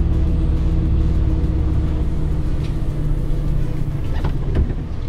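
DAF CF lorry's diesel engine running steadily while the truck manoeuvres to turn around. The engine note eases off about four seconds in, and a single knock follows shortly after.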